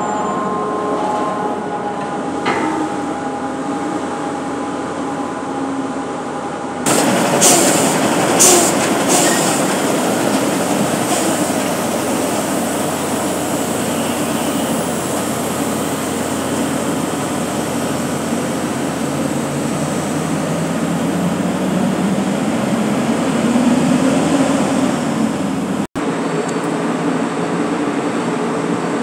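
Steady rumble of diesel dump trucks and dockside cargo-handling machinery, growing louder about seven seconds in, with a few sharp clanks just after; the sound cuts out for an instant near the end.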